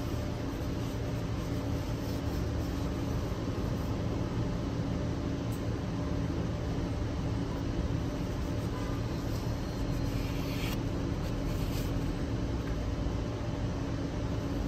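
Steady low mechanical hum with a faint constant tone, and a short rustle about ten seconds in.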